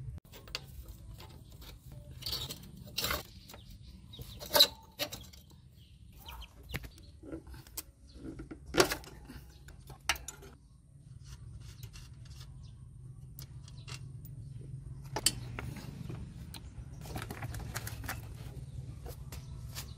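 Scattered sharp metallic clicks and clinks of a spanner on a Honda motorcycle's rear axle nut and wheel hardware, over a steady low background rumble. Near the end comes a longer scraping rustle as the rear wheel is handled.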